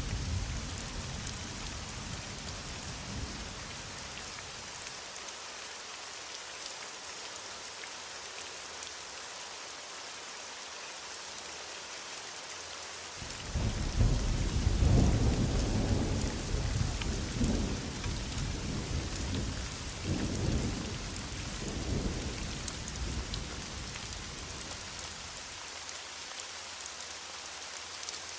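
Steady heavy rain with thunder. A low rumble fades over the first few seconds, then about halfway through a loud thunderclap breaks suddenly and rolls on in several waves for about ten seconds before dying away under the rain.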